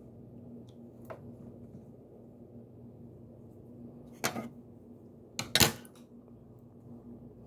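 Colour-changing putty being stretched and squeezed in the hand, giving a sharp squelching pop about four seconds in and a louder double pop about a second later.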